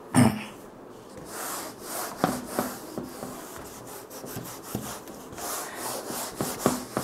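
Whiteboard duster wiping marker writing off a whiteboard in repeated rubbing strokes, with a sharp knock just after the start.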